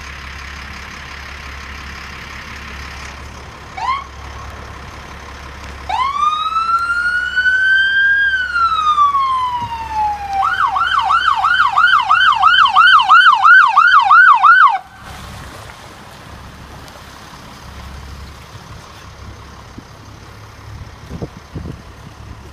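RCMP police SUV's siren signalling a vehicle to pull over: a brief chirp about four seconds in, then a wail that rises and falls from about six seconds, switching to a fast yelp of about three cycles a second that cuts off suddenly near fifteen seconds. A low steady vehicle rumble runs underneath before and after.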